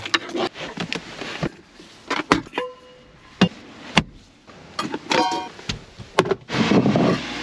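Cooking supplies being handled in truck-bed storage bins: scattered knocks and clatter, with a short ringing clink about two and a half seconds in and another about five seconds in, then a longer scraping rustle near the end.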